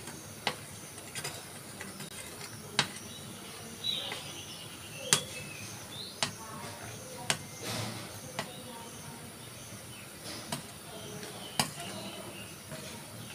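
Metal spoon and ladle clinking against a granite-coated pan while coconut milk is stirred, about ten irregular clinks over a steady low background.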